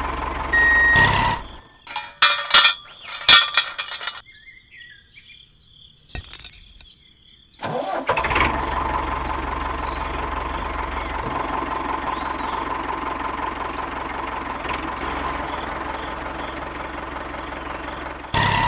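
Tractor engine running steadily for the last ten or so seconds, coming in abruptly about eight seconds in. Before that: evenly spaced beeps in the first second or so, then a few sharp clicks and knocks, then a quiet stretch.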